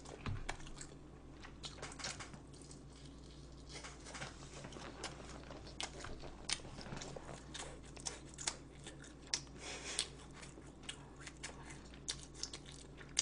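A person chewing food close to the microphone: wet, irregular mouth clicks with a few crunchy bites.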